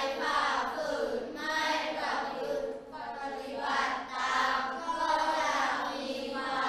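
A class of children reading a text aloud together in Thai, in unison, in a drawn-out sing-song chant that runs with only brief breaths.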